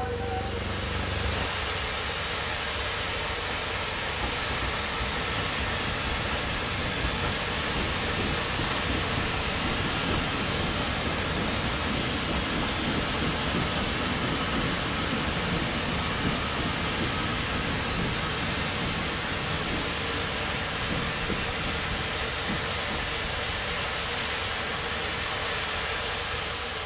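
Steam locomotive hissing steam in a steady, even rush, with a low uneven rumble underneath.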